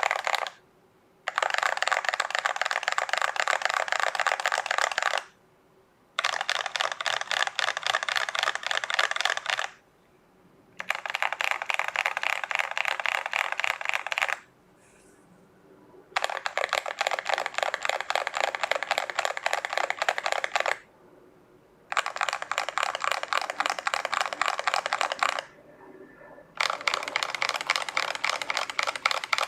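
Mechanical keyboard keystrokes from a Tester68 kit with lubed Akko Jelly Purple tactile switches, XDA keycaps, a two-layer tape mod and polyfill. Keys are pressed in fast runs of rapid clicks, each lasting a few seconds, with pauses of about a second between runs, about six runs in all.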